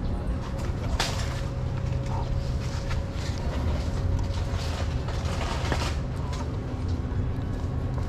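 A steady low motor hum, like an idling engine, with a few soft clicks and smacks of a kitten eating wet cat food from a paper plate.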